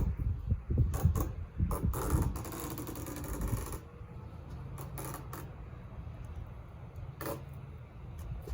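Protective backing being peeled off the 3M adhesive tape strips of a plastic hood protector: a rasping peel about two seconds in, lasting under two seconds, among scattered clicks and taps of handling.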